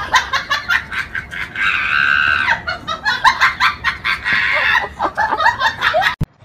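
Chicken-like clucking: a rapid run of short calls, with a longer held squawk about two seconds in, cutting off abruptly near the end.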